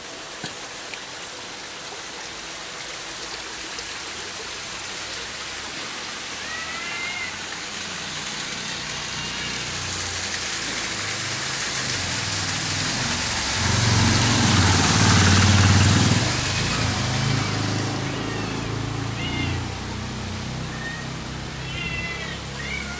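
Cats meowing in short, high calls, a handful of times. Under them a motor vehicle is heard: its steady noise builds, is loudest about two-thirds of the way through and then fades, as it passes.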